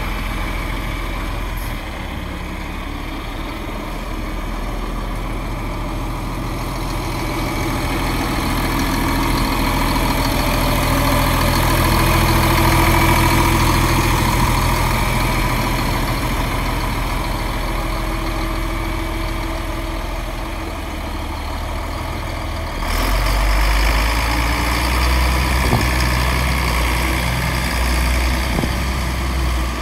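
John Deere tractor's diesel engine idling steadily. About three quarters of the way in the sound changes abruptly and the low engine note becomes louder and deeper.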